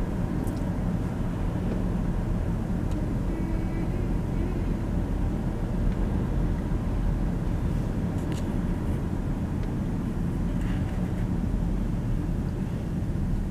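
Steady road and engine noise of a car driving, heard from inside the cabin: an even low rumble without changes in speed.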